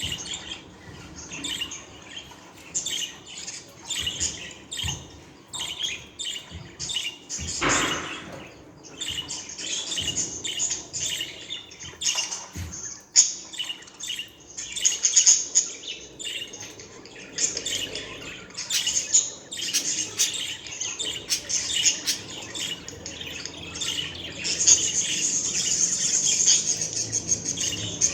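Budgerigars chirping and warbling continuously in rapid, varied twittering, with a denser, steadier stretch of high chatter near the end.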